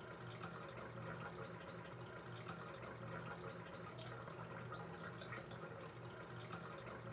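Faint, steady water sound with many small scattered drip-like ticks, over a low steady hum.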